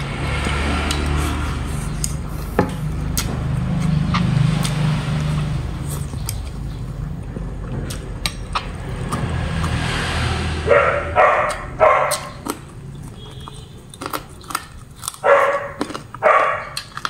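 A dog barking in two quick bouts of four or five barks each in the second half, while crispy fried pork belly is chewed with scattered faint crunches. A steady low rumble runs underneath for the first ten seconds or so.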